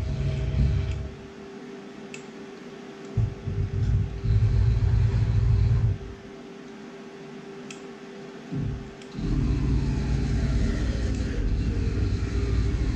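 Tormach 1100MX CNC mill's axes being jogged: a low whirring rumble from the axis motors and drives that starts and stops several times as each move begins and ends, over a steady hum.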